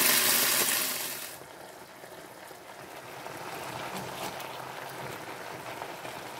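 Pork leg cooking in a hot pan with garlic, onion and peppercorns: a loud sizzling hiss for about the first second, which then falls away to a faint steady hiss with a few light clicks.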